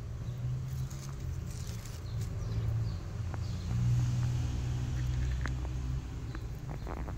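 Low, steady rumble of a motor vehicle engine running, with a few faint clicks and taps.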